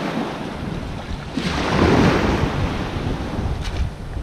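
Wind buffeting the microphone over the wash of shallow bay water; the rushing noise swells louder about a second and a half in and eases off over the next second or so.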